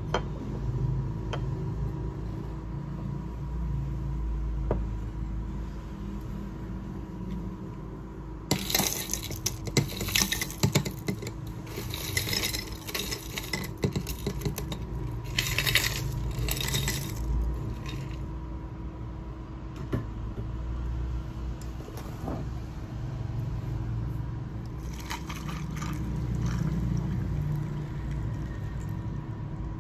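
Ice cubes clattering into a ribbed glass mug in several quick bursts, then tea poured from a glass teapot over the ice near the end, with light clinks of ice against glass. A steady low hum runs underneath.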